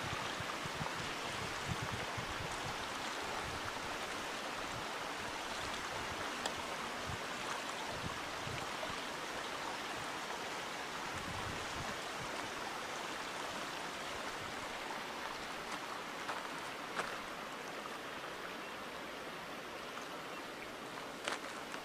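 A steady, even rushing noise, with a few faint clicks and knocks near the end.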